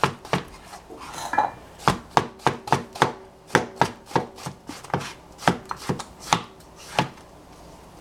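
Cleaver slicing a king oyster mushroom on a plastic cutting board: a run of sharp knocks, two or three a second, with a short pause about a second in, stopping about a second before the end.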